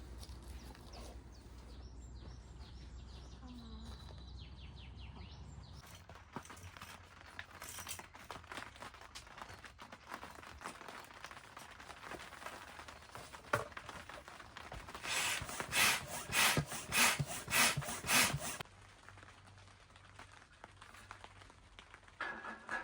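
Rustling and scraping handling noises with scattered clicks, then a run of about eight loud, rhythmic swishing strokes, a little over two a second, that stop suddenly; faint bird chirps at the start.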